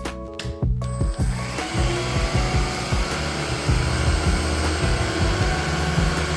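Philips SpeedPro Max cordless stick vacuum running: its motor comes on about a second in and holds a steady hiss with a thin high whine, under background music with a bass line.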